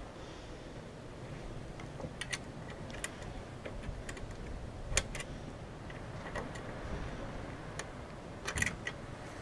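Scattered sharp clicks and light knocks as a Briggs & Stratton Classic carburettor is handled and fitted back onto a mower engine, over a steady low rumble of wind on the microphone.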